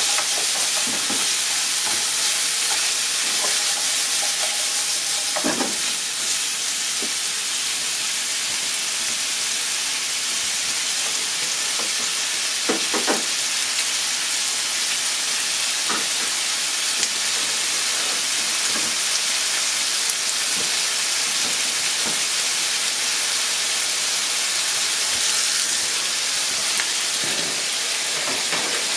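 Chicken pieces sizzling in a frying pan: a steady frying hiss, with a few brief knocks along the way.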